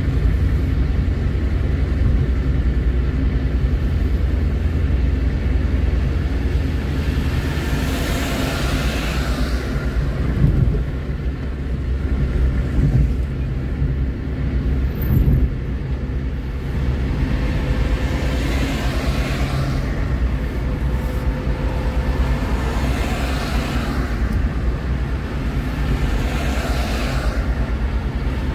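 A car driving at highway speed: a steady low rumble of road and engine noise, with other vehicles swishing past now and then and a few thumps in the middle.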